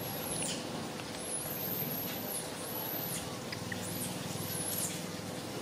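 A series of very high, thin squeaky animal calls, about five of them, each holding a high pitch and then dropping away sharply. Under them runs a steady low rumble with a faint steady hum.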